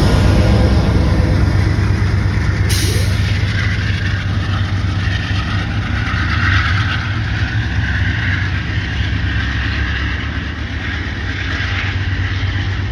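Amtrak P42 diesel locomotive at the rear of a departing train passing close and pulling away, its engine giving a steady low rumble under wheel-on-rail noise. It fades slowly as the train recedes.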